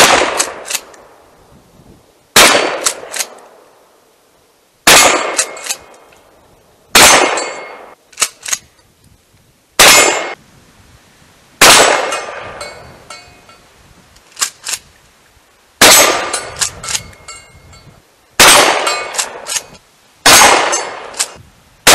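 Mossberg Maverick 88 pump-action shotgun firing mini shotshells: about nine loud shots, each two to three seconds apart, with shorter metallic clacks between them as the pump is worked.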